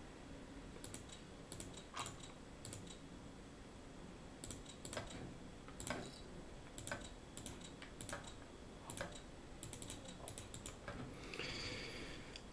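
Faint, irregular clicks of a computer's input, about a dozen spread through, as betting chips are clicked onto the table.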